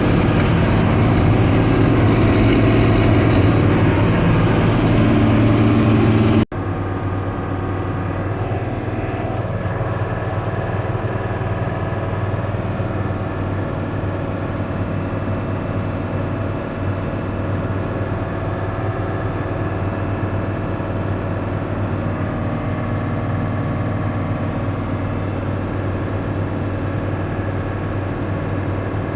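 Combine harvester running steadily while harvesting wheat, a constant engine and machinery drone with a low hum. About six seconds in the sound drops suddenly to a somewhat quieter, equally steady drone.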